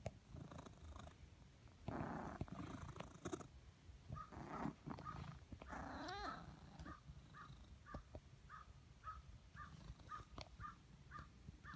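Ragdoll cat purring with a squeaky purr: a steady low purr, with a short high squeak repeating about twice a second through the second half. There are a few louder noisy bursts in the first few seconds.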